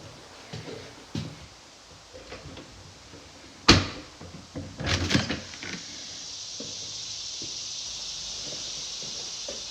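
A door being handled: light knocks, one sharp bang about four seconds in and a rattle of knocks a second later as it shuts. A steady high hiss comes in about six seconds in.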